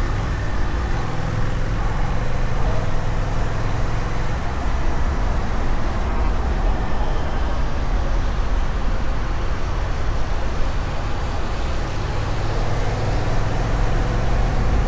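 Honda Rebel 1100 DCT's parallel-twin engine, on the stock exhaust, running steadily at a constant cruise-control speed of about 60 km/h, with the rush of wind and road noise over it.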